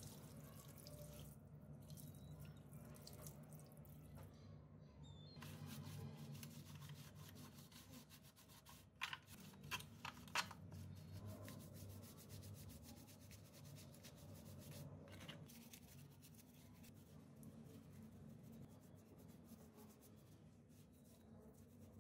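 Faint cleaning sounds on wet plastic: water pouring and dripping, and a brush scrubbing, with a few sharp clicks near the middle, over a low steady hum.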